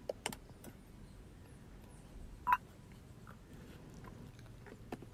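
Quiet handling of cut vegetables, with a few soft clicks and knocks. About two and a half seconds in comes one brief ringing clink from a stainless steel bowl.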